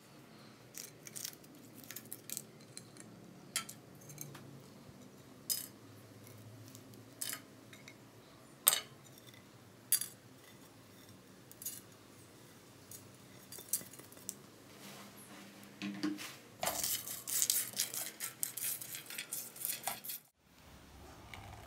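Whole spices such as peppercorns, cardamom pods and star anise dropped one at a time into a dry nonstick frying pan, each landing with a separate sharp click, about a dozen over the first fifteen seconds. Near the end comes a dense run of rattling and scraping as a silicone spatula stirs the dry-roasting spices around the pan.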